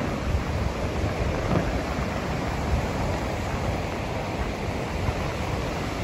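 Ocean surf breaking and washing onto a sandy beach, a steady roar of rough sea with wind gusting on the microphone as an uneven low rumble.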